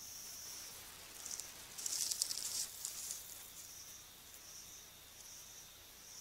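A steady high insect trill, pulsing in the later seconds, with a burst of crackling rustle in dry leaf litter about two seconds in as dusky-legged guans move right beside the camera.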